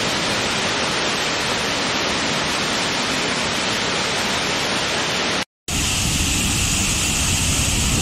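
Waterfall: a steady, even rush of falling water. About five and a half seconds in it cuts out for a split second and comes back as a second, larger waterfall with a deeper rush and more low rumble.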